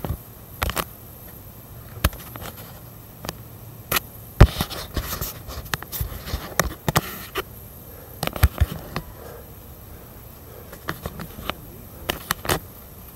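Footsteps scraping and crunching on a loose, rocky dirt trail, with sharp knocks and clicks at uneven intervals.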